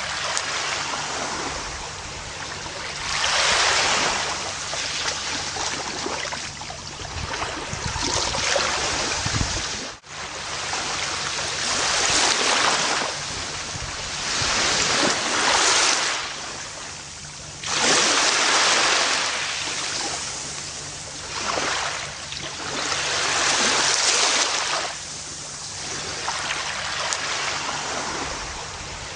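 Gentle ocean surf washing onto a beach, each wave swelling and fading every few seconds. The sound drops out briefly about ten seconds in.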